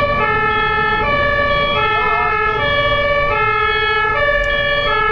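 German two-tone emergency siren ('tatü-tata') on an ambulance, alternating steadily between a high and a low note, each held for under a second, over a low rumble of traffic.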